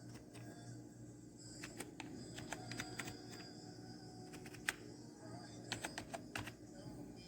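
Scattered light clicks and taps, irregular and a few at a time, with a sharper one near the middle and a quick run of them near the end, over a steady low hum.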